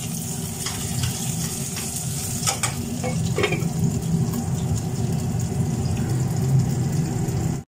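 Minced-meat kababs sizzling in a little oil in a covered pan on low heat, with a few light knocks of the pan and its glass lid as the pan is shaken.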